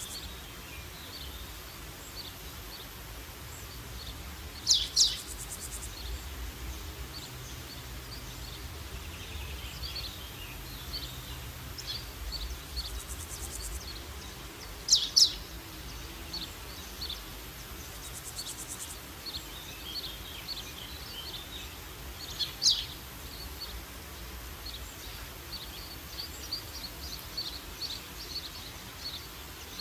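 Forest birdsong: many small birds chirping and twittering throughout, with a louder, sharp high call about five seconds in, a double one about fifteen seconds in, and another about twenty-two seconds in, over a faint low rumble.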